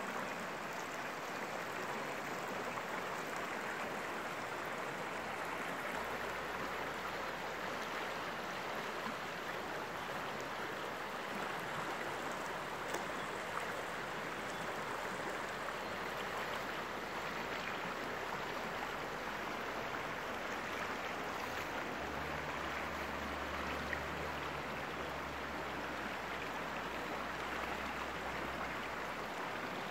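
Shallow river rushing steadily over rocks and riffles, an even, unbroken water noise.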